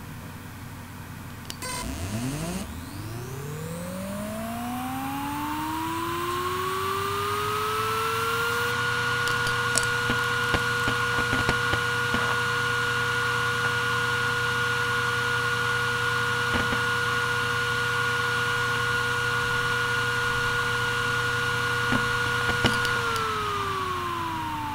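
Toshiba X300 Performance HDWR460 6TB 7200 rpm hard drive woken from sleep. A few clicks, then a whine that rises in pitch for about six seconds as the platters spin up. It holds steady with occasional faint head clicks, then starts falling in pitch near the end as the drive is put to sleep and spins down.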